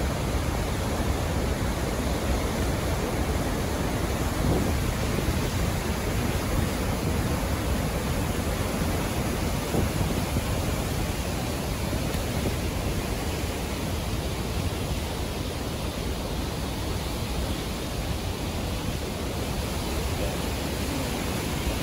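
Floodwater rushing through the open spillway gates of Warragamba Dam and crashing into the churning river below: a loud, steady rush of water.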